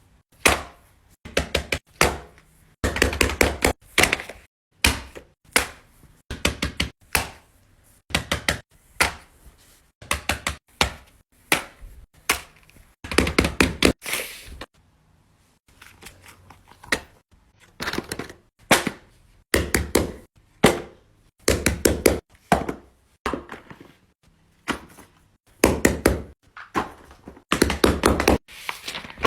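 Fidget toys being handled: quick runs of sharp taps and clicks, in short bursts with brief pauses between them.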